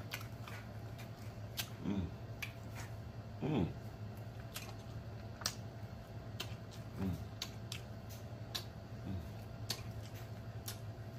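Close-up eating noises of fried chicken wings being eaten: a string of sharp wet lip smacks and finger-licking clicks, with four short falling 'mm' moans.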